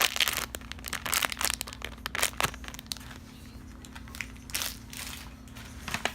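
Homemade packaging being handled and crinkled, giving irregular rustles and crackles throughout, with a faint steady hum underneath.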